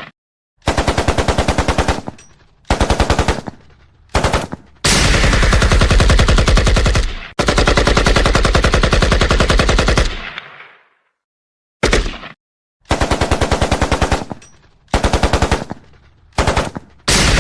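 AK-47 rifle (7.62×39 mm) firing on full automatic in repeated bursts at about ten shots a second. Most bursts are short, under a second or so, and two in the middle run about two to three seconds. Each burst trails off in a brief echo.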